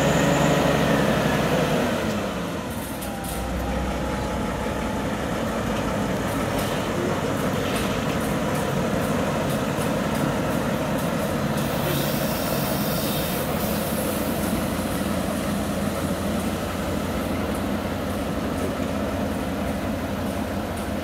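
Diesel-hydraulic engine of a red class 346 (ex-DR V 60) shunting locomotive running as it moves a rake of coaches slowly along the track, with the rumble of wheels on rails. The engine's pitch rises and then drops in the first two seconds, then holds steady. A brief hiss comes about twelve seconds in.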